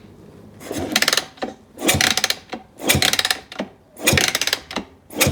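Yamaha WR250 engine being turned over in repeated strokes, about once a second, each a short clattering burst, with the spark plug out of the cylinder head to check for spark.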